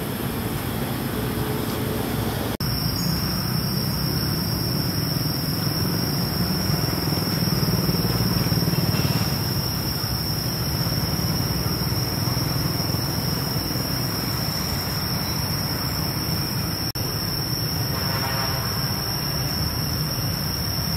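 Steady low rumble with a continuous high-pitched whine over it, broken for an instant twice, about two and a half seconds in and again near the end.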